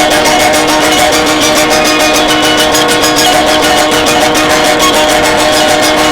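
Loud, dense guitar-based music: sustained droning notes with a fast, even pulse in the high end, unchanging throughout.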